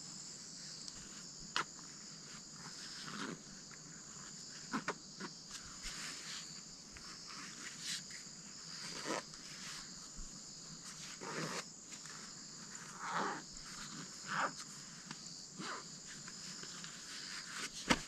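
Faint, steady high-pitched drone of insects chirping, with about a dozen brief, soft rustles and taps scattered over it from someone shifting about in the tent doorway.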